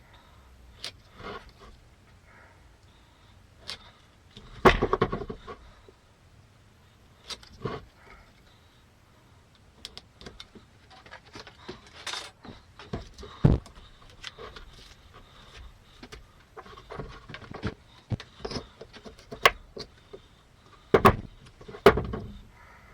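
Irregular knocks, clicks and clatter of hard objects being handled, with quiet gaps between; the loudest knocks come about five seconds in and again near the end.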